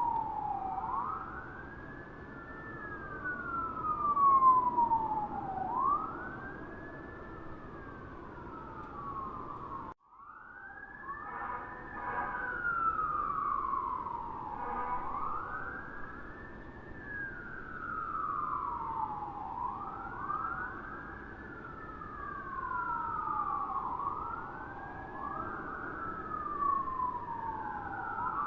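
Distant American fire-truck sirens wailing, each sweep rising and falling over about four seconds. After a brief cut-out about ten seconds in, two sirens overlap, their wails out of step.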